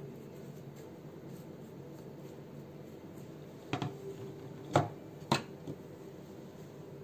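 Steady low room hum, broken a little over halfway through by three light knocks, the middle one the loudest, as the cast frame and brush are set down on the wooden worktable.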